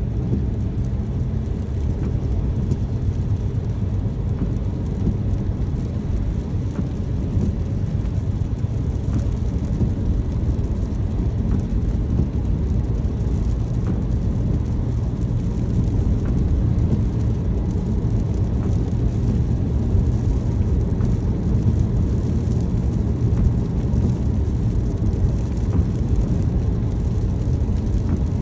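Car driving in the rain, heard from inside the cabin: a steady low rumble of road and engine, with a faint patter and occasional light ticks of rain on the car.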